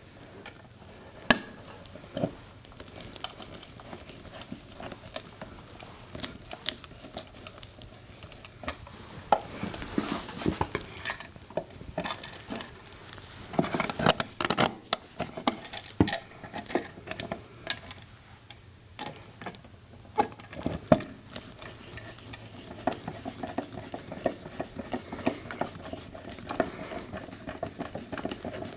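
Handling noise from a wired USB wall outlet being worked back into its electrical box: irregular clicks, taps and scraping as the stiff wires are folded in and the outlet is pushed into place. It comes in bunches, busiest about halfway through, with a few sharp knocks.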